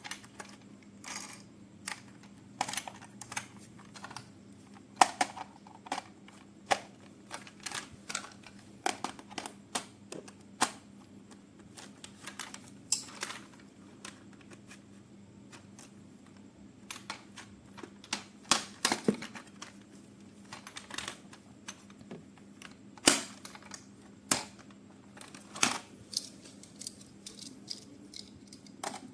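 Unboxing noises: irregular clicks, taps and short rustles as plastic toy parts and packaging are handled, over a faint steady hum.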